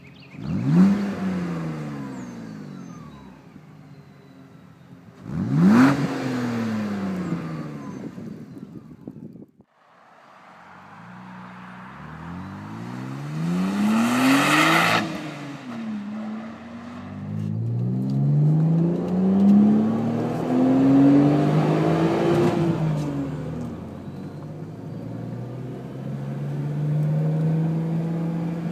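Exhaust of a supercharged BMW Z4 3.0i's M54 straight-six: two quick revs that jump up and fall straight back, then after a short break longer revs that climb and drop, ending in a steadier engine note.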